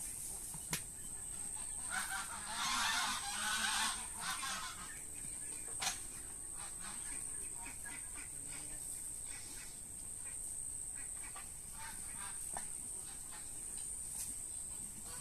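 Farmyard birds calling in a few rough bursts, mostly in the first four seconds, over a steady high-pitched tone.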